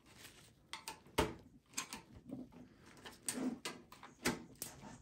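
Scattered clicks and knocks from a screwdriver and gloved hands handling an HP EliteDesk 800 G1's steel chassis and plastic parts, with a few dull thuds, as the clipped-in power switch is worked at.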